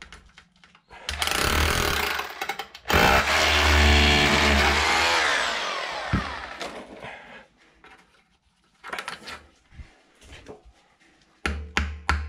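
Power drill boring a hole into the tile grout for another wall plug, running loud for several seconds, then its motor pitch falls as it winds down. Near the end comes a quick run of low knocks, about five a second.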